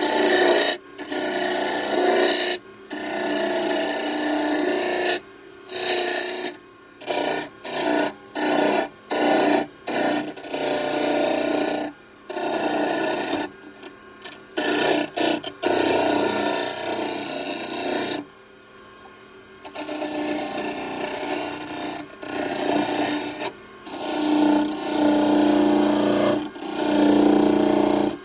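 A woodturning tool cutting into wood spinning on a lathe, a harsh scraping in many short passes that start and stop, with longer steadier cuts near the end.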